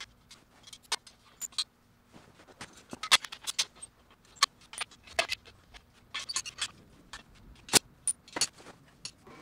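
Metallic clinks and knocks of steel parts and clamps being handled and set on a welded steel-tube frame, a scatter of light taps with a few sharper knocks.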